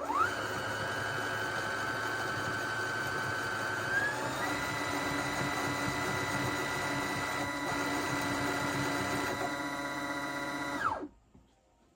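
Electric home sewing machine motor running at speed with a steady whine. It speeds up with a quick rise at the start and steps up again about four seconds in, then winds down and stops near the end.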